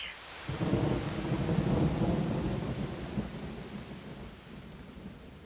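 Deep rolling rumble over a steady hiss. It starts suddenly about half a second in, swells for a second or so, then fades slowly over the next few seconds.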